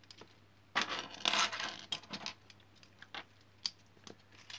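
Loose Wilko Blox plastic building bricks clattering as hands handle and sort through them: a dense rattle about a second in, then a few separate clicks.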